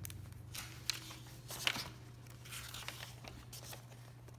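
Pages of an old paperback book being handled and turned, the paper rustling in several short swishes with two sharper crackles about one and just under two seconds in. A low steady hum sits underneath.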